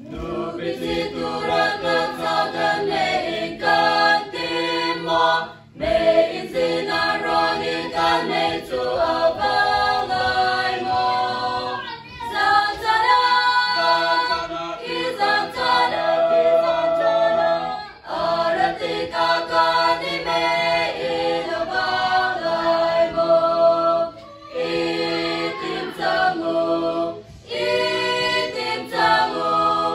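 Women's choir singing a hymn without accompaniment, with short breaks between phrases every few seconds.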